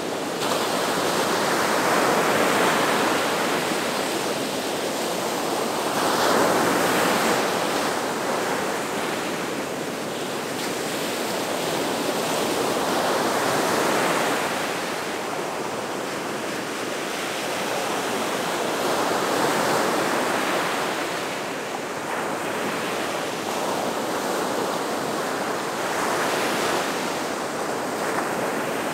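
Gulf of Mexico surf breaking and washing up the shore in a continuous hiss. It swells and fades as each wave comes in, every several seconds.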